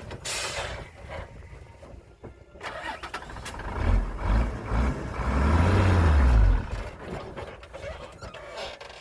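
A heavy vehicle's engine revving up and back down, loudest about five to six and a half seconds in, after a short hiss near the start.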